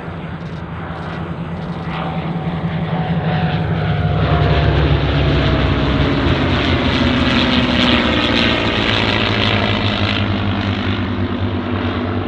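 Three WWII piston-engined fighters, a Supermarine Spitfire, a Hawker Hurricane and a P-51 Mustang, flying past in close formation on their V12 engines. The engine drone builds to its loudest as they pass overhead midway through, the pitch drops as they go by, and the sound then slowly fades.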